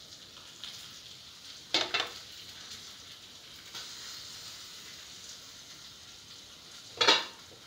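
Sardine and coconut curry simmering in an open pan, with a steady bubbling sizzle. Two short clatters cut through it: one about two seconds in, as the glass lid comes off, and a louder one near the end.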